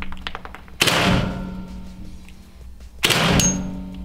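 Two shots from an Umarex HDR 68, a CO2-powered calibre .68 home-defence revolver, about two seconds apart. Each shot is a sharp crack that rings on in the reverberant indoor range.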